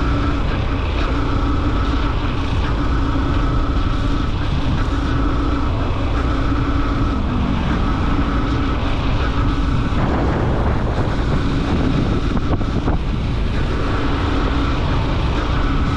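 Motorcycle engine running at a steady cruise with wind rushing over the microphone. About ten seconds in, the steady engine tone is drowned out by a louder rush of wind, and it comes back near the end.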